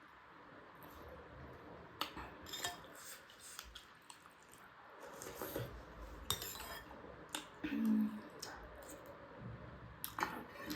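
Cutlery tapping and clinking on a plate and bowl while eating, in scattered separate clicks. A brief low hum, the loudest sound, comes about eight seconds in.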